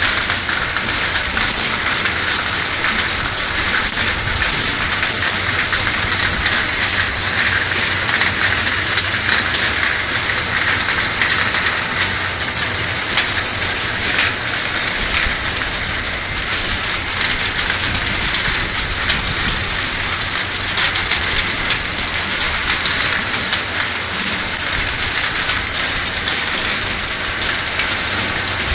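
External washing machine for 50 ml vials running, with a loud, steady hiss.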